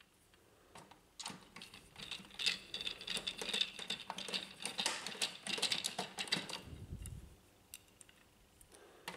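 Hand screwdriver turning screws into the sheet-metal panel of a Brother HL-1110 laser printer: a dense run of small clicks and scraping ticks starting about a second in and stopping near seven seconds.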